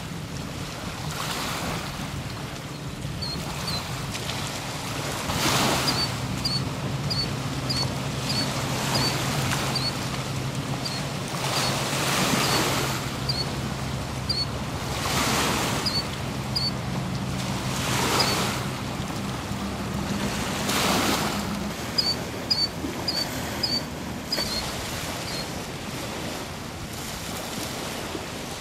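Choppy lake waves washing onto a muddy shore, swelling every two to three seconds, with wind. A steady low hum runs through the middle, and runs of short high bird chirps come and go.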